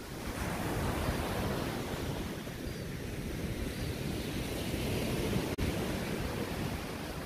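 Small ocean waves breaking and washing up a sand beach: a steady rush of surf that grows louder just after the start. The sound cuts out for an instant about two-thirds of the way through.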